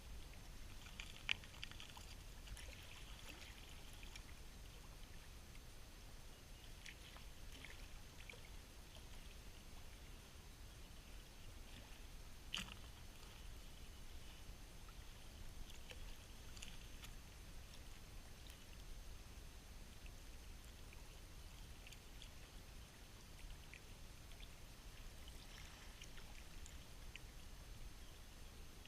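Faint trickling water with a few scattered sharp clicks and rustles, the loudest click about a second in.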